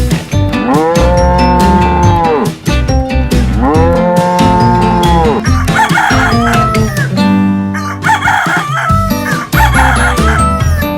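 A cow mooing twice in long, drawn-out calls, followed by two wavering calls from a chicken, over a background music beat.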